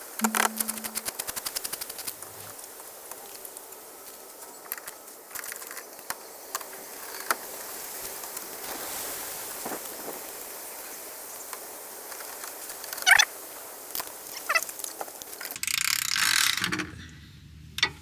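A socket wrench ratcheting in a fast run of clicks for about two seconds. Scattered knocks and clinks of tools follow, one loud one partway through, and a short rustling burst comes near the end.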